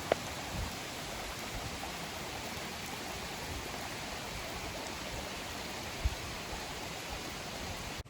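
Steady rain falling, an even hiss throughout, with two brief taps, one right at the start and one about six seconds in.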